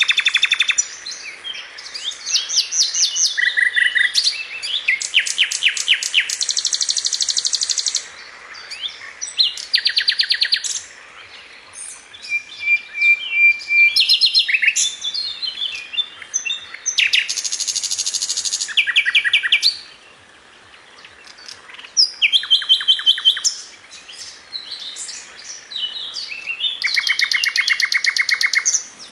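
A songbird singing a long, varied song: a run of different high-pitched phrases, many of them rapid trills of repeated notes, others short whistles and chirps, with brief pauses between phrases.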